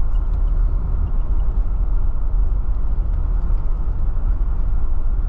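Steady, loud road and engine rumble heard from inside a moving vehicle at highway speed.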